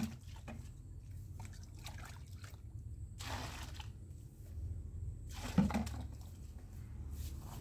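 Liquid sloshing and splashing in a bucket as it is scooped with a long-handled ladle, with a sharp knock about three-quarters of the way through.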